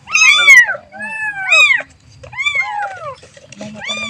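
Kitten meowing over and over for its mother: a quick run of short, high calls, each rising and then falling in pitch, six or seven of them with brief gaps between.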